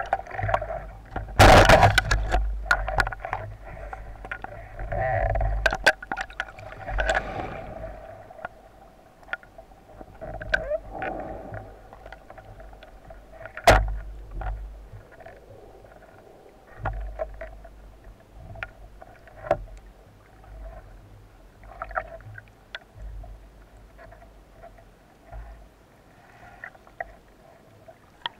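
Underwater sound of very shallow sea stirred by waves: a muffled rumbling surge and gurgling, scattered with short clicks and knocks. It is loudest in the first couple of seconds, and there is one sharp knock about fourteen seconds in.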